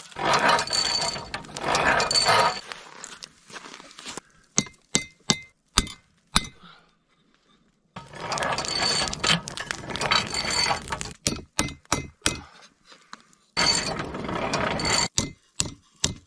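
A tool working a steel knife blank: three spells of long scraping strokes on the metal, each with a faint high squeal, separated by sharp clicks and taps as the tool and blade are handled.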